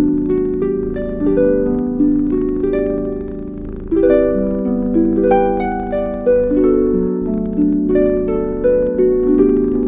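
Calm instrumental background music: soft plucked-sounding notes played in flowing, overlapping arpeggios, several notes a second.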